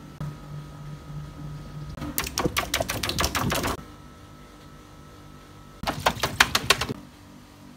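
A hand rapidly tapping and slapping the taut skin of a large water-filled inflatable, in two bursts of quick slaps: one of about a second and a half starting about two seconds in, and a shorter one around six seconds in. A steady low hum runs underneath.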